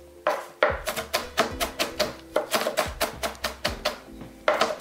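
Kitchen knife chopping cilantro on a cutting board: quick, even knocks about four a second, with a short lull just past halfway before the chopping picks up again. Background music with sustained tones plays underneath.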